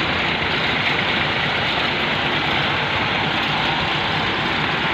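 Steady vehicle engine and road noise, a low rumble running evenly throughout with no horn sounding.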